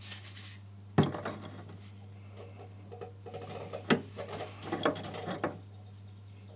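Adjustable spanner knocking and scraping on the nut at the toilet fill valve's connection as it is fitted and turned a little at a time. There is a sharp knock about a second in, another near four seconds, and a run of smaller clicks and scrapes between about three and five and a half seconds, over a steady low hum.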